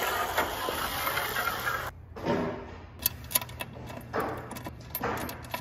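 Linear-rail bearing block sliding along an aluminium track, a continuous rolling hiss. About two seconds in it stops abruptly, followed by scattered light clicks and taps.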